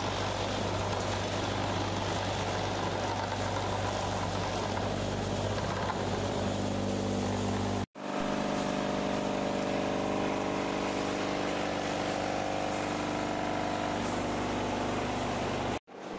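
Concrete vibrating table running under rubber kerb-stone moulds filled with concrete: a steady mechanical hum. The sound drops out for an instant just before halfway, then carries on with higher steady tones, and drops out again briefly near the end.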